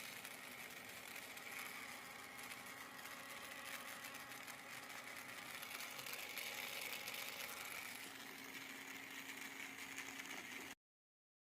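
A 6 V DC gear motor from a kids' ride-on car runs under power, a steady high whir of the motor and gear train. It cuts off suddenly near the end.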